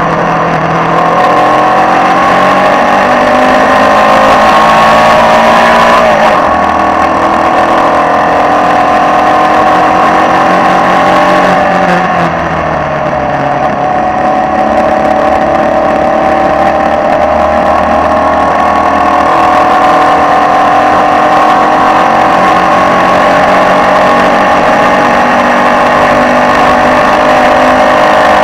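Onboard sound of a Formula Vee racing car's air-cooled Volkswagen flat-four engine under hard throttle, its pitch climbing, dropping sharply about six seconds in and again around twelve seconds in as the revs fall, then building again.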